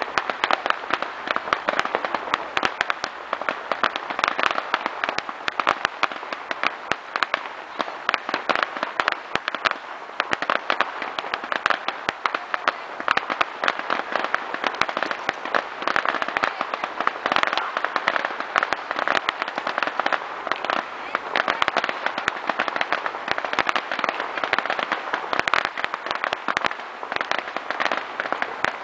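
Fireworks display crackling: a dense, steady rattle of many small pops throughout.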